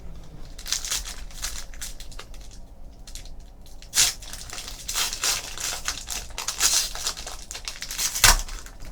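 Trading card pack wrappers being torn open and crinkled while the cards are handled, with a sharp rip about four seconds in and another near the end.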